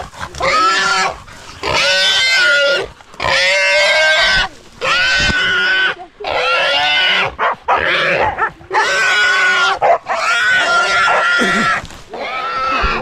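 Wild pig squealing loudly while hunting dogs hold it, in a string of piercing squeals about a second long each, about ten of them with short breaks between.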